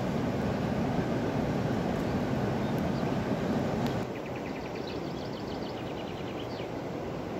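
Rushing river water, loud for about four seconds, then dropping suddenly to a softer rush. Over the softer rush a bird chirps in quick repeated high notes.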